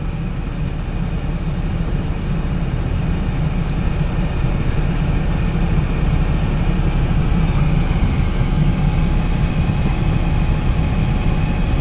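Steady low rumble inside a vehicle's cabin, slowly growing a little louder, with a faint steady high tone coming in about halfway.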